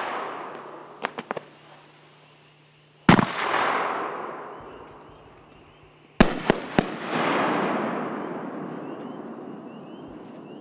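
Aerial fireworks shells bursting: small crackles about a second in, a loud bang about three seconds in, and another bang about six seconds in followed quickly by two sharp cracks. Each blast trails off in a long echo that slowly fades.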